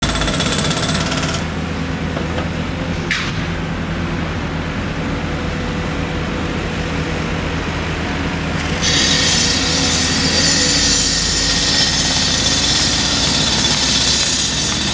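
Caterpillar 319C hydraulic excavator at work: its diesel engine runs steadily under load with a thin hydraulic whine. A brief sharp noise comes about three seconds in, and from about nine seconds in a louder high hiss joins it and holds as the machine swings its loaded bucket over to the dump truck.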